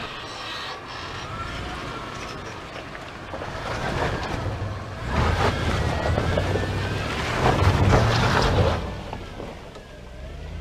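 Lexus GX470's 4.7-litre V8 SUV driving slowly over a rough dirt forest road: engine rumble with tyre and body noise that swells louder about midway, then eases off near the end.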